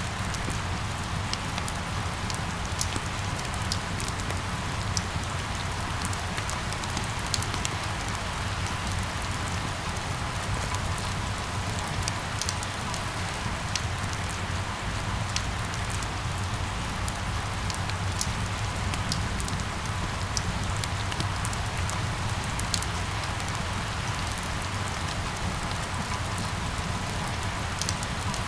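Steady rain falling, with a dense patter of individual drops ticking on hard surfaces over a low rumble.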